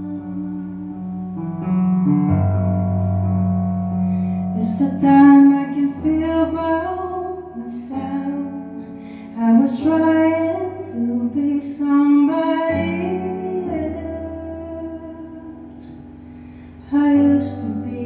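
A woman singing live over held chords on a Nord Electro 4 stage keyboard, the chords changing every couple of seconds.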